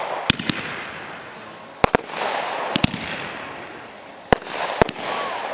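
Fireworks shells bursting: sharp bangs, mostly in close pairs, coming every second or two, each followed by a fading hiss.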